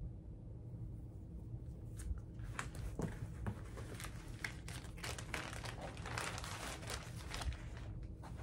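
Crinkling and rustling as cross-stitch projects and their packaging are handled: irregular small crackles that start about two seconds in and thicken toward the end.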